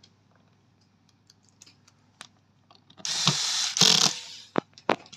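Electric screwdriver driving a short screw into a robot vacuum's plastic bottom cover: one burst of about a second, starting about three seconds in, followed by a few sharp clicks.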